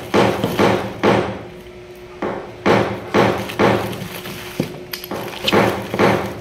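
Hammer blows at about two a second, each ringing briefly, in runs broken by a pause of about a second.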